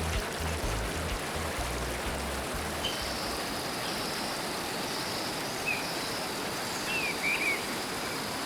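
Flowing river water, a steady even rush, with the reggae bass line dying away in the first couple of seconds. A few short bird chirps come in the second half over a thin, steady high tone.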